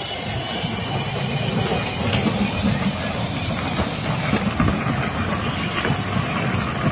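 Battery-powered kids' ride-on car driving over paving stones: a steady rumble from its hard plastic wheels and electric drive.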